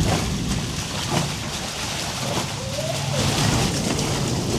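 Heavy rain falling steadily with an even hiss, with a short rising vocal sound about two and a half seconds in.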